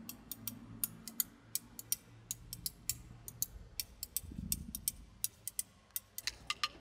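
Sharp percussive clicks at an uneven pace of about four a second over a low hum, like ticking or sticks tapping. About four and a half seconds in a low rumble swells briefly, and near the end the clicks grow louder and take on a ringing tone.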